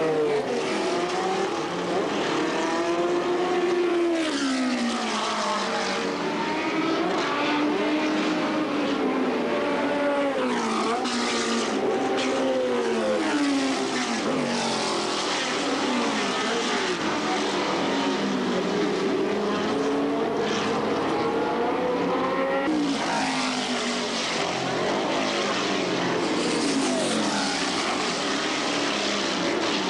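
Historic sports-racing cars passing at speed one after another, several engines overlapping, each one's pitch sweeping up and down as it goes by.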